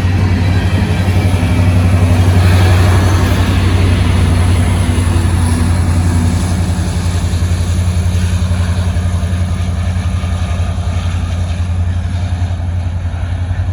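Diesel-electric DPU locomotive at the rear of a Norfolk Southern freight train passing close, its engine a steady low drone over rolling-train rumble. It is loudest about two to three seconds in, then slowly fades as it moves away.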